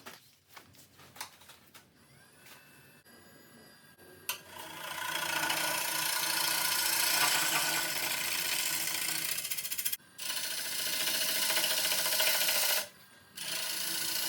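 A woodturning tool cutting a spinning wet bowl blank on a midi lathe: a steady rasping shave of wood that starts about four seconds in after a few faint clicks, and breaks off twice briefly as the tool is lifted away.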